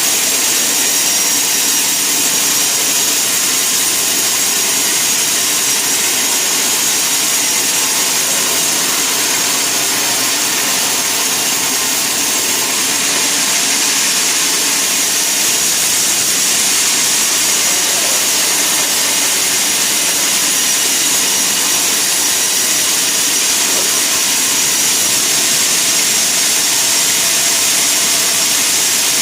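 Sawmill saw running steadily: a continuous even noise, strongest in the high range, with a faint high whine throughout.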